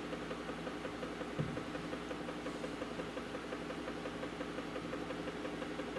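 Steady low hum of a small motor, with one soft knock about a second and a half in.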